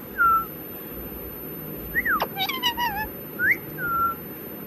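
Pet parrot whistling and calling: a handful of short notes that slide up and down in pitch, with a falling sweep about two seconds in, followed by a fuller wavering call.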